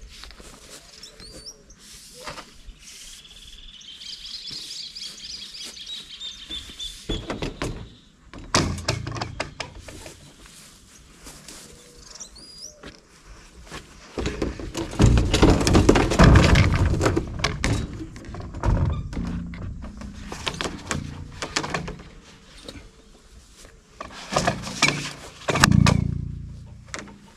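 Knocks, clatter and scrapes of long PVC pipes being handled and laid onto a small utility cart's metal bed. The handling is loudest for a few seconds about halfway through and again near the end. Birds chirp in the first few seconds.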